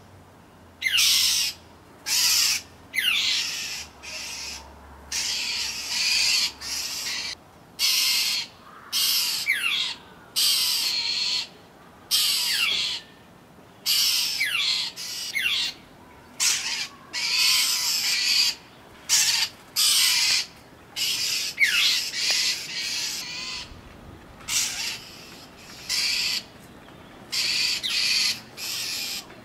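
Northern mockingbirds giving harsh, raspy scolding calls again and again, about one a second, each call opening with a quick downward sweep: alarm calls of birds mobbing a cat.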